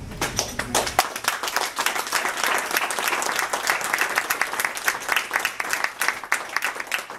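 A small group of people applauding with many hands clapping, tailing off near the end.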